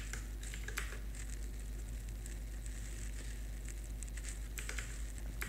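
Computer keyboard keystrokes: scattered, fairly quiet clicks, some in quick little runs, over a steady low electrical hum.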